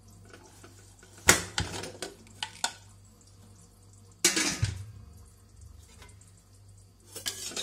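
Prestige pressure cooker lid being opened and lifted off once the pressure has dropped: a few sharp metal knocks and clanks. The loudest comes about a second in, and another clatter with a short ring follows about halfway through.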